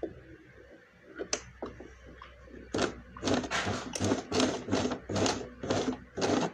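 Domestic sewing machine stitching at a slow, even pace, about three stitches a second, starting about three seconds in after a single light click.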